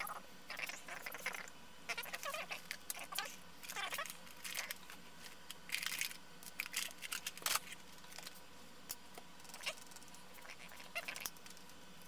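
Handling noises on a workbench: irregular short bursts of rustling and squeaky scraping as a circuit board and tools are moved about, thinning out after about eight seconds into a few light clicks.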